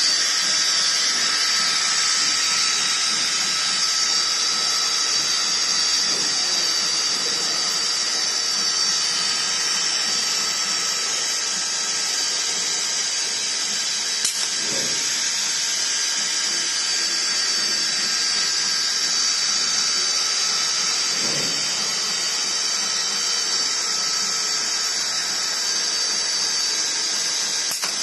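CNC router spindle running steadily during a wood machining job, a constant high-pitched whine over a hiss.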